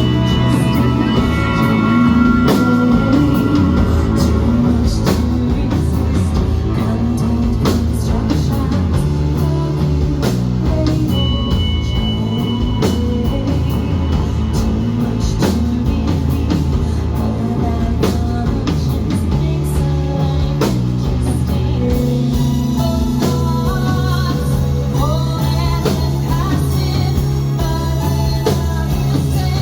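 Rock song played by a band with guitar, bass and a steady drum beat, with a voice singing over it.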